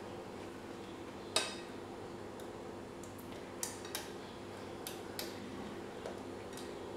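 Silicone spatula stirring thick batter in a stainless steel bowl, clinking against the bowl: one sharper clink about a second and a half in, then several lighter taps. A steady low hum runs underneath.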